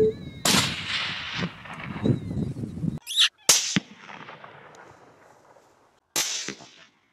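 Three rifle shots, about half a second, three and a half seconds and six seconds in, each a sharp crack whose report trails off over a second or so.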